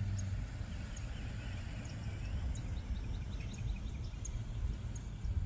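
Birds chirping, many short high calls and a few little sliding calls, over a low steady outdoor rumble.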